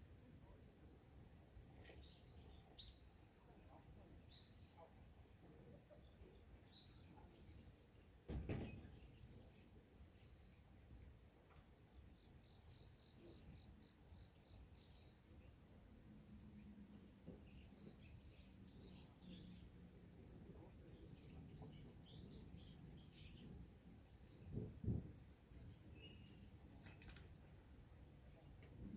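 Crickets trilling steadily and faintly, with two dull thumps, about 8 seconds and 25 seconds in.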